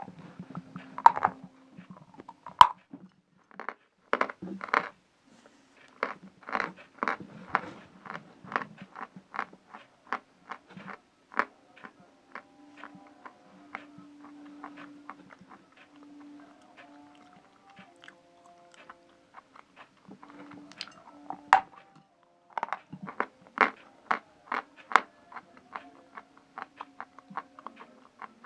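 A person biting and chewing a piece of Vasilpole natural chalk close to the microphone: dozens of sharp, dry crunches, coming in quick runs in the first third and again near the end, sparser in between.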